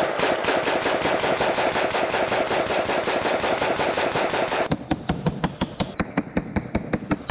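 Zastava M70 AK-47 rifle in 7.62×39 mm firing rapidly, several shots a second in a steady string. About two-thirds of the way in the sound cuts to a camera mounted on the boat being shot at, where the shots come through duller and more spaced.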